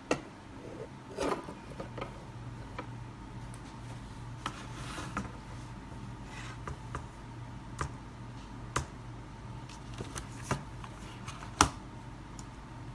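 Irregular sharp clicks and brief rustles of objects being handled, over a faint steady low hum. The loudest click comes near the end.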